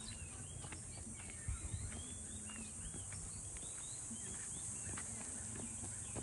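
Many small birds chirping in short repeated arching notes over a steady high insect drone, with a few dull knocks about a second and a half in.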